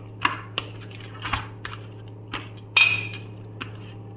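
Hands kneading and patting soft bhatura dough, greased with ghee, in a stainless steel plate: a run of short soft slaps and knocks. The loudest comes about three seconds in and leaves a brief ring from the steel plate. A steady low hum runs underneath.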